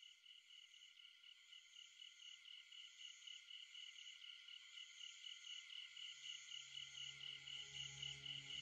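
Faint, rapidly pulsing insect chirping, cricket-like and steady, slowly growing louder. A low sustained musical drone fades in underneath about six seconds in.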